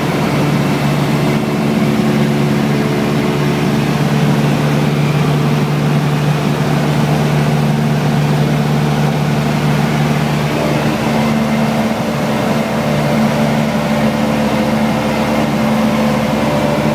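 Single-engine propeller aircraft's engine and propeller droning steadily in flight, heard from inside the cockpit.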